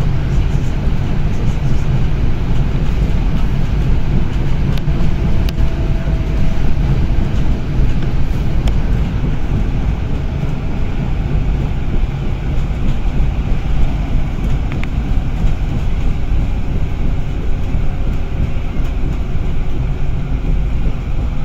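Bus driving along a guided busway: a steady low rumble of engine and tyres, with a few faint clicks.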